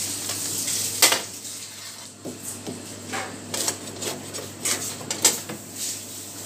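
Long metal tandoor rods clinking and scraping against each other and the tandoor's rim as roti are pulled off the oven wall: a series of sharp metallic clinks, the loudest about a second in, after a steady hiss that drops away at that point.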